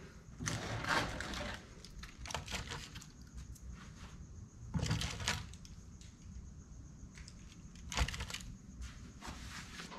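Handling noise of a bundle of copper compressor-motor windings being set on and shifted about on a digital scale's plastic pad: scattered rustling of wire and light knocks. The loudest knock comes about eight seconds in.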